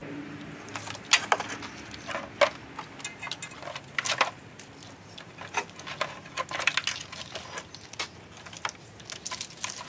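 Snowplow wiring harness plugs and wires clattering and rattling as they are piled into a plastic milk crate and dragged out of the truck's front end: irregular sharp clicks and knocks throughout, loudest a second in, about two and a half seconds in and about four seconds in.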